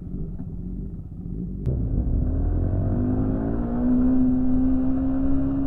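Yamaha R15 V4's single-cylinder engine ticking over, then, after a sharp click about a second and a half in, rising in pitch as the bike pulls away and accelerates, holding steady and climbing again near the end.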